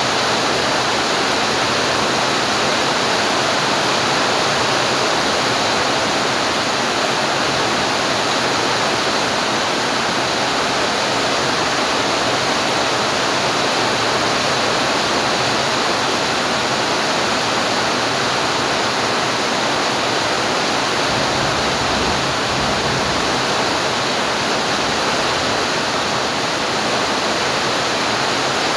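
Steady rainfall: a dense, even hiss of rain that holds constant throughout.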